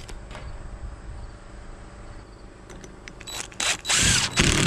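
A pencil marking a painted steel roofing panel, in a quick run of loud scratching strokes starting about three seconds in. Before that, only a faint steady background with insects trilling.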